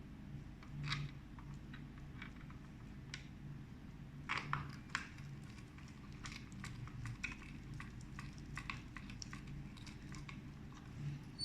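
Scattered light clicks and taps of small parts being handled, in clusters with the loudest around four to five seconds in, over a steady low hum.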